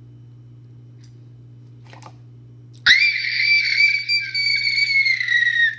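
A low steady hum, then about three seconds in a shrill, high-pitched whistling tone starts suddenly, holds for nearly three seconds while sagging slightly in pitch, and stops.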